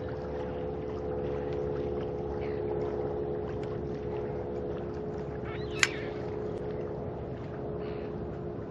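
Steady hum of a boat motor over water and wind noise, with a single sharp click about six seconds in.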